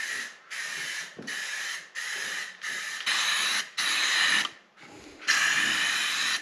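Aerosol can of clear lacquer, worked with a clip-on trigger handle, spraying in a run of short hissing bursts with a faint whistle in them, the last burst longer.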